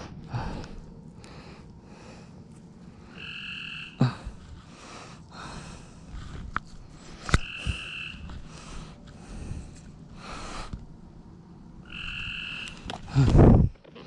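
Frogs calling. A short call with two pitched tones repeats roughly every four to five seconds over shorter raspy calls, with a few sharp clicks and a loud thump just before the end.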